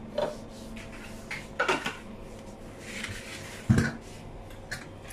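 Dead giant trevally and smaller fish being handled on a stainless steel sink, giving a few clattering knocks against the metal. The loudest, a heavy thump, comes about three-quarters of the way in. A low steady hum runs underneath.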